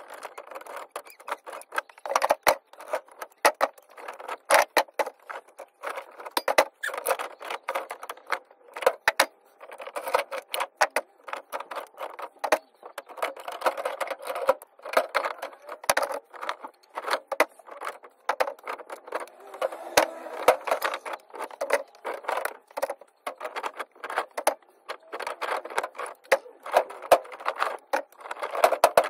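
Irregular clinks, clatters and knocks of heavy aluminium-armoured cable and loose metal being handled and moved about, some knocks sharp and loud, with no machine running.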